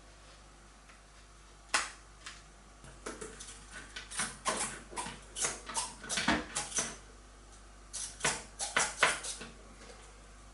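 Hands handling small plastic parts of a model plane: irregular light clicks and taps, a single one early, then a busy cluster through the middle and another shortly before the end.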